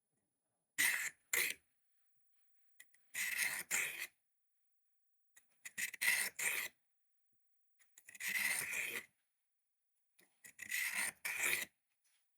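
A pocket knife blade being drawn across the abrasive of a handheld sharpener: five separate rasping strokes, each about a second long and coming about every two and a half seconds, as the edge is sharpened.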